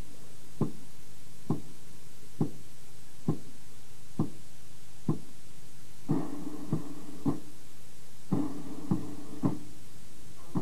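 Military band's bass drum beating steady march time, one stroke about every second. The band plays two short phrases over it about six and eight and a half seconds in.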